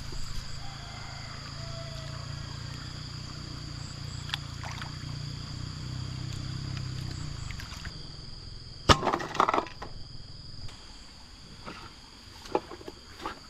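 Someone wading through muddy pond water, then climbing out through bank brush with a basin of plastic-bottle fish traps: water sloshing, then a loud clatter and rustling of bottles and leaves about nine seconds in, followed by scattered knocks. A steady high insect drone runs underneath.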